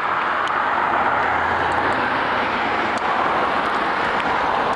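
Steady rushing noise of road traffic, cars passing close by on the road, with a deep engine hum in the first two seconds.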